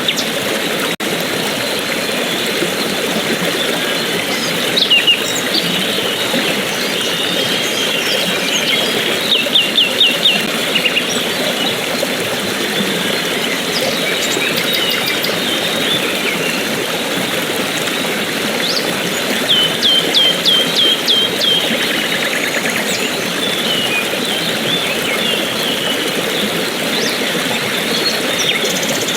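Steady rushing water with birds chirping over it. A bird gives quick runs of five to eight repeated short notes about ten seconds in and again about twenty seconds in.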